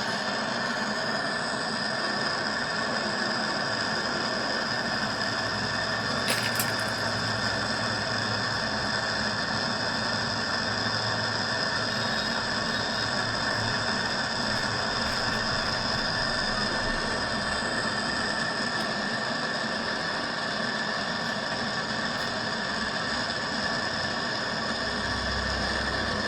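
A machine running steadily: an even hum with several steady tones, and one brief click about six seconds in.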